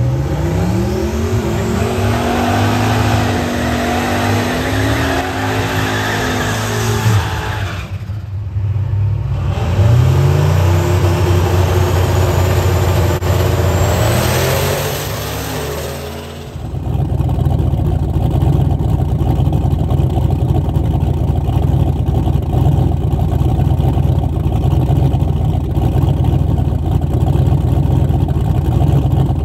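Drag cars launching and accelerating down the strip, their engines rising in pitch as they pull through the run, twice. About halfway in this gives way to a car engine idling steadily with a low exhaust rumble.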